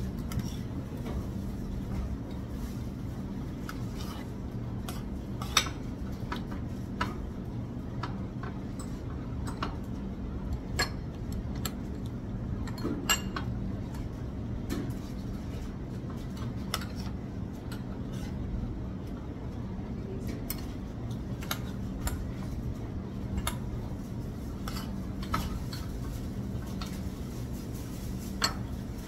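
Metal forks and spoons clinking and scraping against plates while eating, in irregular separate clicks, over a steady low hum.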